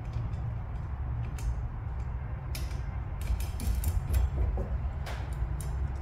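Light metallic clicks and scrapes of a steel nut being threaded by hand onto a foosball rod's threaded end, with small parts picked up off the playfield, over a steady low hum.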